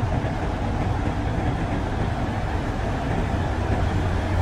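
Grove TM1500 hydraulic truck crane's diesel engine running as the crane drives slowly toward the listener: a steady low drone.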